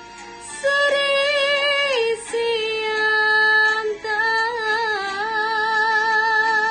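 A woman singing a Malay asli song in long, sustained notes with vibrato and ornamental wavering, over instrumental accompaniment. The first note steps down in pitch about two seconds in, and after a short breath about four seconds in she holds another long note.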